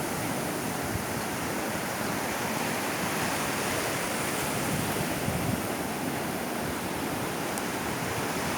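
Mediterranean surf: waves breaking and washing up the beach in a steady, continuous rush.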